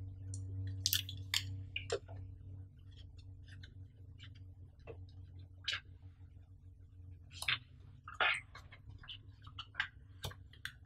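Hands handling an earphone box's foam insert and lifting the earbuds out of their cutouts: scattered light clicks, taps and scrapes of packaging, loudest about a second in and again around seven to eight seconds in. A low steady hum runs underneath.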